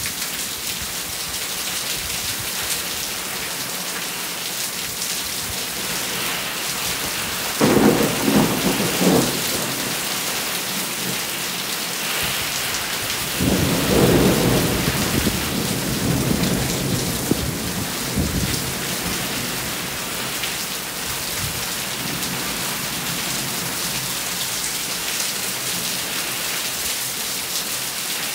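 Steady rain falling through a thunderstorm, with two rolls of thunder: one rumbles for about two seconds starting roughly a quarter of the way in, and a second, longer one comes near the middle.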